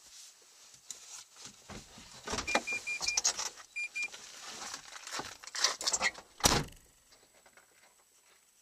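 Someone getting out of a car: rustling and movement in the cabin, a run of short electronic beeps from the car, then a car door shutting with a heavy thud about six and a half seconds in.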